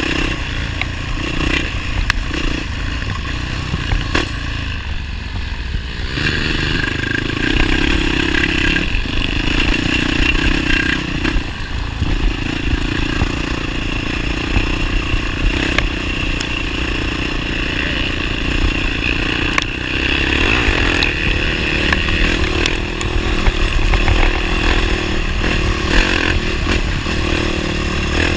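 Motorcycle engine running continuously, its note dipping briefly a few times, with rattling and clatter over it.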